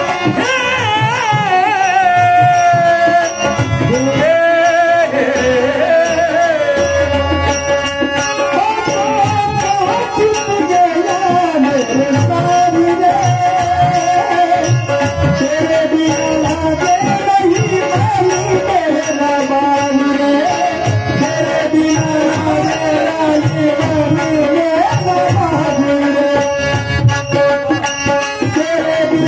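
Marathi gavlan devotional music: a wavering, gliding melody line held over steady hand-drum beats.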